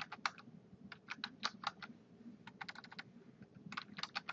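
Computer keyboard keystrokes, typing out a word in short irregular runs of clicks.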